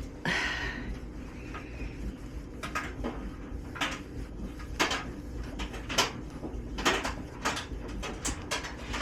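Light clicks and knocks of household things being handled, irregular, roughly one a second, with a short hiss just after the start.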